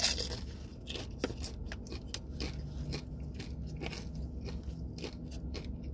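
A bite into a crispy hard-shell chicken taco, with a loud crunch right at the start, followed by steady crunchy chewing.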